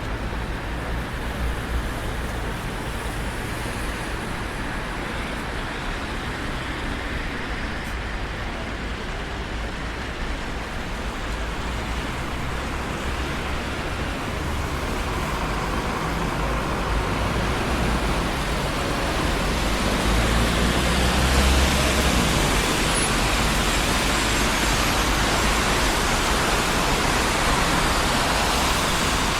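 Traffic on a busy city street: a steady wash of passing cars and tyre noise, growing louder from about halfway through, with a deep rumble swelling about two-thirds of the way in.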